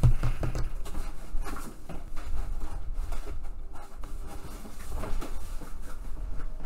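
Irregular knocks, taps and rustling of objects being handled and moved about, as when rummaging for a piece of cardboard, over a low steady room rumble.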